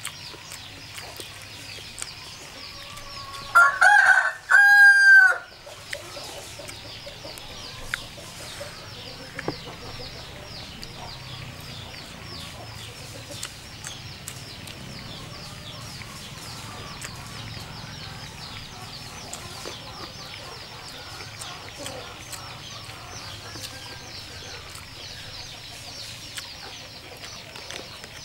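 A rooster crows once, loud, about four seconds in, the call lasting about two seconds; the rest is a steady, faint background.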